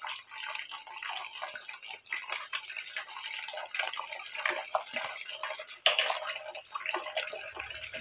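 Hot cooking oil in a wok sizzling and crackling densely as shredded tongkol fish fries in it, with a louder pop about six seconds in.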